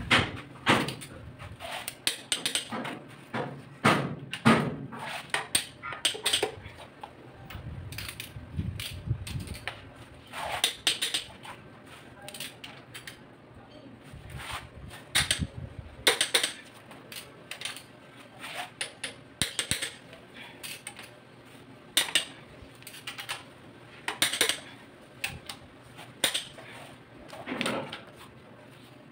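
Socket and wrenches clinking and clicking against the head bolts of a Mitsubishi 4D34 diesel's cylinder head as they are fitted and tightened: scattered sharp metallic clicks, irregular, several every couple of seconds.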